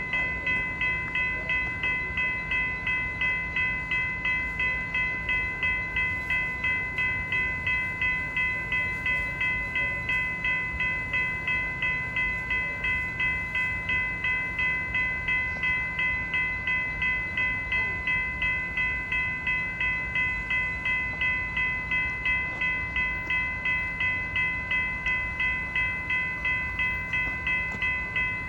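Railroad crossing warning bell ringing in an even, rapid rhythm of about two strikes a second, warning of an approaching train.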